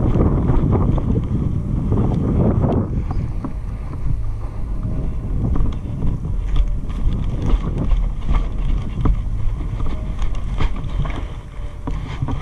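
Wind buffeting an action camera's microphone as a steady low rumble, with scattered light ticks and rustles from the player's footsteps and gear as he moves over grass. Near the end, dry branches scrape past.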